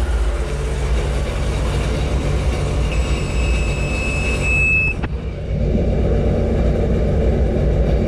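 Sea-Doo FishPro personal watercraft engine idling steadily. About three seconds in, a steady high-pitched warning beep sounds for about two seconds: the fault beeper that goes with the check-engine light.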